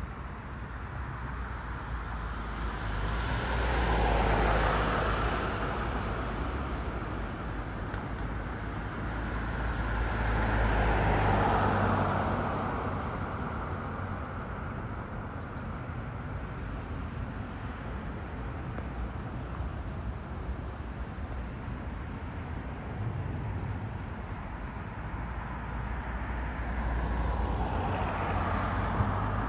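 Road traffic: cars passing one at a time on a city road, each swelling and fading over a few seconds. There are three passes, about 4 s in, about 11 s in and near the end, over a steady traffic hum.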